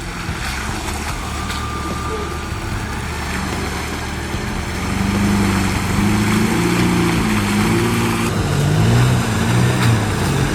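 A vehicle running while driving: a steady engine rumble with road and wind noise. About halfway through, shifting low tones grow louder over it.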